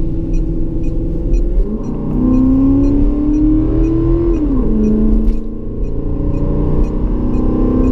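Ford Expedition engine breathing through an aftermarket K&N air intake under acceleration. Revs climb, drop at an upshift about 1.7 s in, climb steadily, drop again at a second upshift about 4.5 s in, then climb again.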